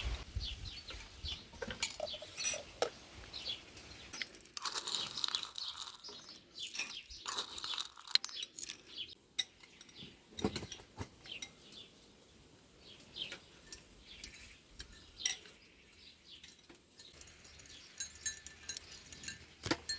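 Intermittent crunching and small clicks, busiest for a few seconds near the middle.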